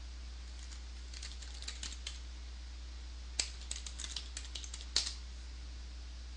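Computer keyboard typing in two short runs of keystrokes, one about a second in and another from about three and a half seconds, ending in a louder keystroke near five seconds, over a low steady hum.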